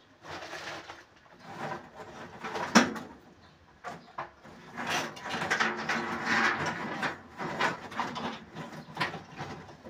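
Irregular clicks, knocks and rustling of small objects being handled and sorted by hand, with one sharp knock about three seconds in.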